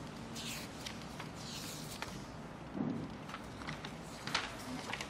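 Quiet room tone with sheets of paper being handled: a few short rustling swishes, a dull thump, and several small clicks and taps.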